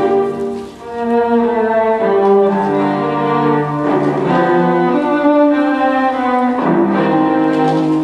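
Music played on bowed strings, cello and violin, in long held notes, with a brief dip in loudness about a second in.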